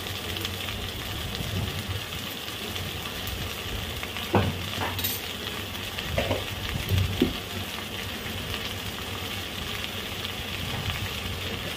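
Okra and sliced onions frying in oil in an aluminium kadhai: a steady sizzle, with a few short knocks between about four and seven seconds in.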